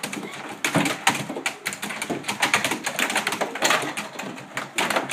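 Air hockey table clatter: irregular sharp clacks of the puck and plastic mallets striking, mixed with a Doberman's claws tapping on the playing surface.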